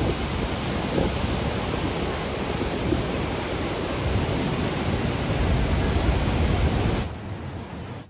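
Chalakudy River rapids rushing in heavy monsoon flow: a loud, steady roar of white water. It fades down about seven seconds in.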